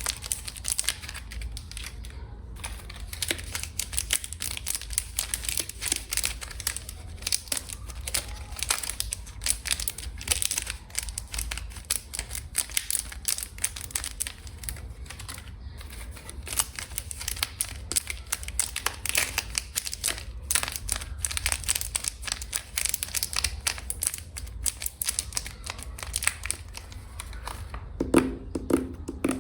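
Close-up crinkling and crumpling of packaging under fingers, a dense run of small crackles. Near the end it changes to sharper tapping with a low ringing tone.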